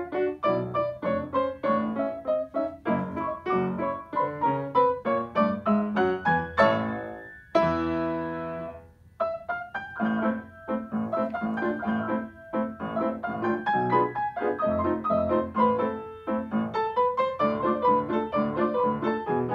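Grand piano being played: a steady stream of notes, then a quick upward run about six and a half seconds in that lands on a held chord. The chord rings and fades for over a second, and then the playing resumes.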